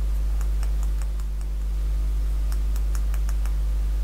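Faint, irregular small clicks, several a second in clusters, from fingers on the clock kit's circuit board and its push-buttons, over a steady low electrical hum that is the loudest sound.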